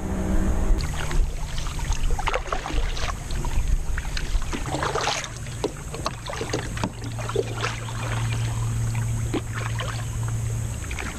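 Water splashing and lapping around a kayak on a river, in many small irregular splashes and trickles. A low steady hum runs underneath in the second half.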